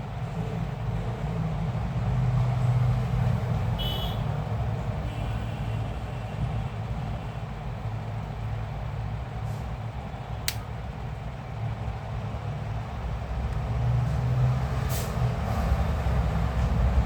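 A steady low rumble, with a sharp click about ten seconds in and a fainter one near the end.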